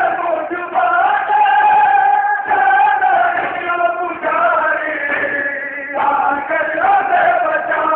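A group of men chanting a noha, a Shia lament, together in long held notes, with the pitch stepping to a new note every second or two.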